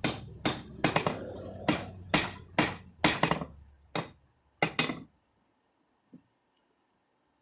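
Hand hammer striking hot rebar steel on an anvil while forging a knife blade: ringing blows at about two a second, then three more spaced strikes, stopping about five seconds in.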